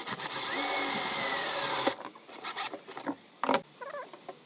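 A power tool runs for about two seconds with a whine that sags slightly in pitch, then stops abruptly; a few short knocks and clicks of handling follow.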